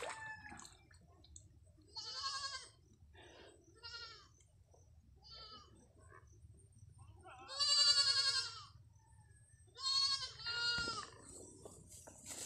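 Goat bleating about six times in a wavering voice, the longest and loudest bleat about eight seconds in, with two short ones close together near the end.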